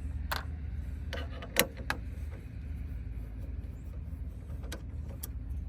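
A few short, sharp clicks of a T15 Torx bit and bolts being worked loose from a plastic hood latch, the loudest about a second and a half in, over a steady low hum.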